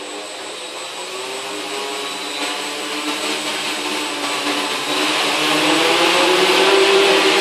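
SK450 quadcopter's four Turnigy 2215 900kv brushless motors and propellers spinning up on the ground. They make a steady multi-pitched drone that grows louder as the throttle is raised, stepping up about five seconds in, with a thin high whine above it.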